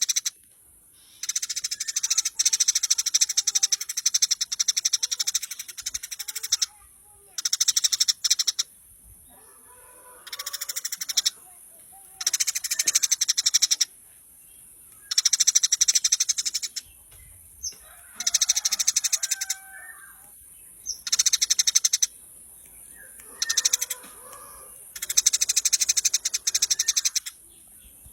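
Eurasian tree sparrows (burung gereja) chirping in rapid chattering bursts, each lasting one to several seconds, with short pauses between them. A steady high hiss runs underneath.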